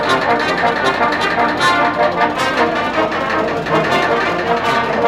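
Brass ensemble of trumpets and trombones playing a lively tune together.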